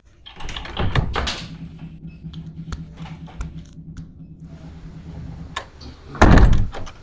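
Door being worked: rattling and clatter at the start, then a heavy thud as it shuts near the end, over a steady low hum.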